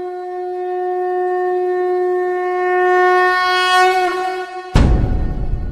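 A horn blown in one long steady note with a bright, reedy edge, its pitch wavering just before it ends. About five seconds in it is cut off by a sudden heavy drum hit that rings on.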